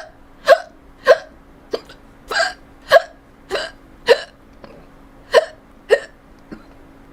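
A person hiccupping over and over: about a dozen short, sharp hiccups, roughly two a second, a few of them fainter than the rest.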